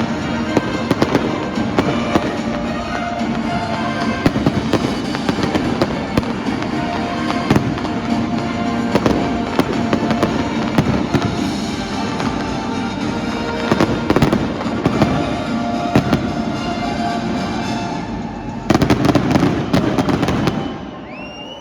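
Fireworks display: a rapid stream of bangs and crackles over steady music. Near the end comes a very dense volley of crackling, then it drops away.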